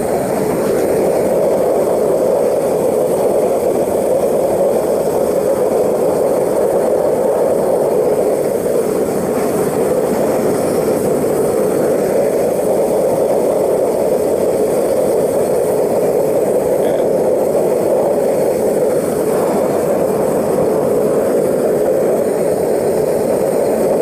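Propane burners firing into a small melting furnace, a steady rushing roar, as a graphite crucible of silver heats up to melt.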